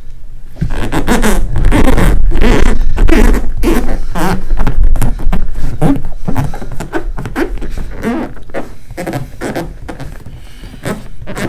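Hands pressing and rubbing a freshly glued PVC D-ring patch down onto the vinyl skin of an inflatable paddle board: a quick, irregular run of rubbing and knocking, loudest in the first half and quieter later.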